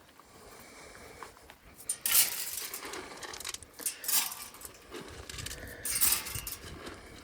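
Dry corn and alfalfa pellets rattling as they are poured out for hog-trap bait, in three or four short rushes, the loudest about two seconds in.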